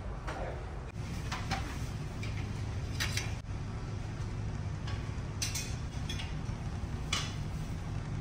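A few sharp clinks of dishes and metal serving utensils at a buffet, over the steady low hum of a ship under way.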